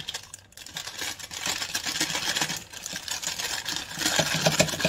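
Plastic piping bag crinkling and rustling as hands work it open in a cup and fill it with meringue.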